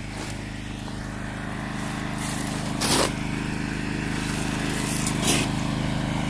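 Backhoe engine running steadily and slowly getting louder, with two sharp knocks, about three seconds in and again about five seconds in.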